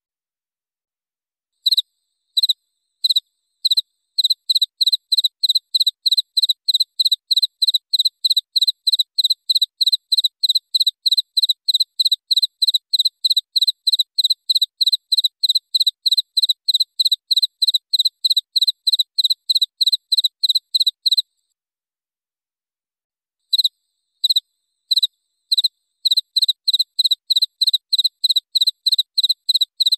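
Cricket chirping: a clean, high chirp repeated about two or three times a second. It starts with a few spaced chirps about two seconds in and breaks off about 21 seconds in. After a pause of some two seconds it starts again, spaced at first, then quickening.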